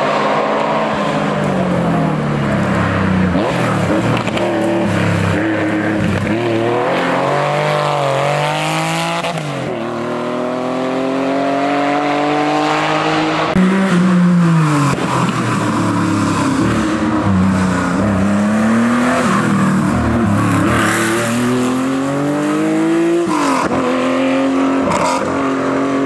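Historic rally car engines at full throttle, one car after another, revving up through the gears. The pitch falls sharply at each gearchange and lift, then climbs again.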